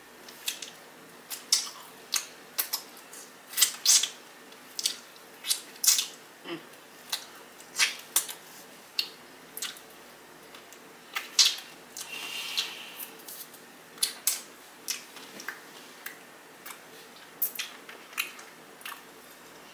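Close-miked eating of sauced chicken wings: chewing and wet lip smacks, sharp and irregular, about two a second.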